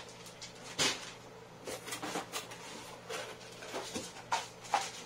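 Plastic packaging crinkling and a cardboard box being rummaged through, with a string of short rustles and light knocks, the loudest about a second in.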